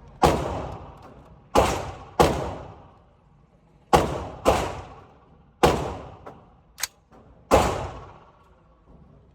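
AR-15 rifle fired seven times at an uneven pace, some shots in quick pairs, each crack trailing off in a long echo.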